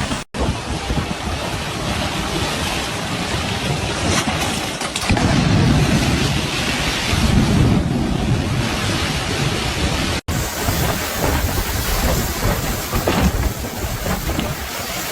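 Storm noise: a steady roar of heavy downpour with low thunder-like rumbling swelling in the middle. The sound cuts out for an instant twice, about a third of a second in and again around ten seconds in.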